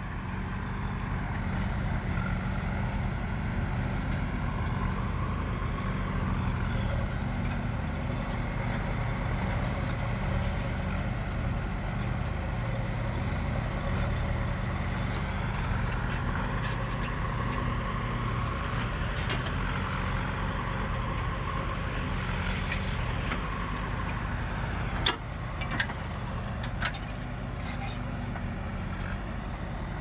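JCB 3DX backhoe loader's four-cylinder diesel engine running under load as the backhoe digs, a steady low drone with a wavering whine over it. Two sharp knocks come near the end.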